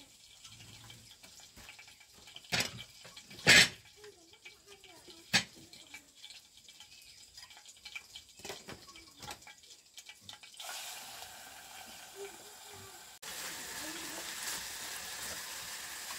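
Kitchen work: a few sharp knocks of pots or dishes, the loudest about three and a half seconds in. About two-thirds of the way through a steady hiss starts, and it turns abruptly louder near the end.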